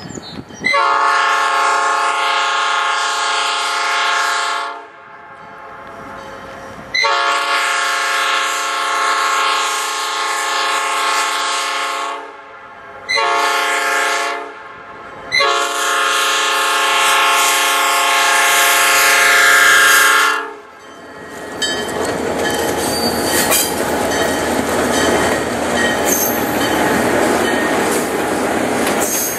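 Diesel locomotive's multi-tone air horn sounding the grade-crossing signal: two long blasts, one short and one long. The train's passenger cars then roll past on the rails with a loud steady rumble and clatter.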